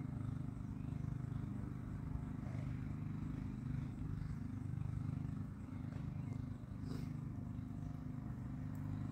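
Traxxas Nitro Slash's small nitro engine idling steadily during break-in: an even, low rumble.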